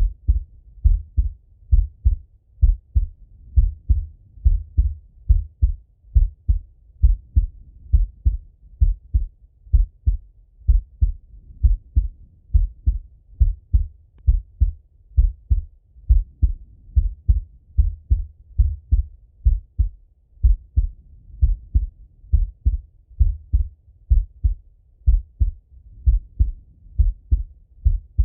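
A man's heartbeat heard through a stethoscope: a steady, slow lub-dub, each beat a low double thump, repeating evenly about once a second.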